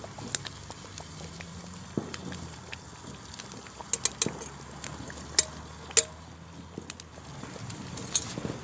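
Irregular sharp clicks and pops over a steady low background, the loudest about four to six seconds in.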